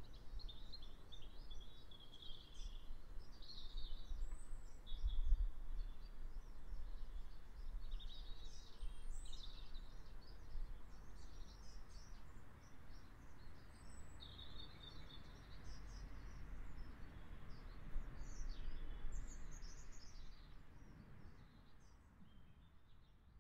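Small birds chirping and twittering in many short, high calls, over a low steady rumble; fading out near the end.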